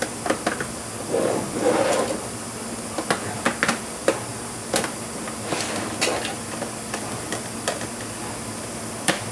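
Irregular sharp clicks, taps and small knocks of laptop plastic and metal parts being handled and pried during disassembly of an ASUS G1S notebook, with a brief rustle near two seconds in, over a steady background hiss.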